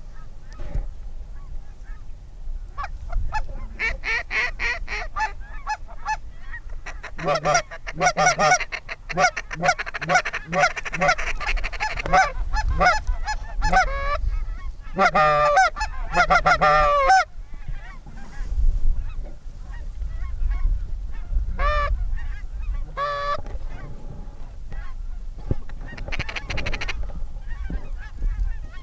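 Goose honking and clucking: a long run of quick, pitched honks and clucks for much of the first half, then a few separate single honks near the end.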